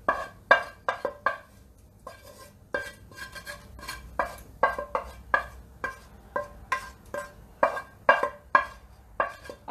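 Spatula scraping and knocking against a frying pan and pot as fried vegetables are pushed out of the pan into the pasta: a run of sharp clinks and scrapes, about two a second, each ringing briefly.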